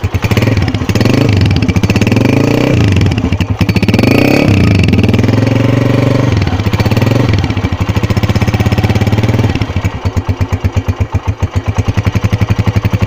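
Honda CG125 Classic's single-cylinder four-stroke 125 cc engine running, revved up and back down several times, then dropping to a steady, evenly pulsing idle for the last few seconds.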